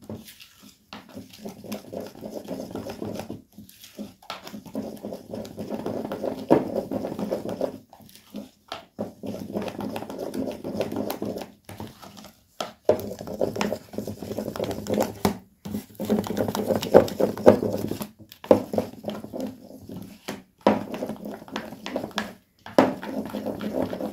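Plastic spatula stirring thick cake batter in a plastic tub, working cocoa powder into it: wet squelching and scraping strokes in spells of a few seconds with short pauses between.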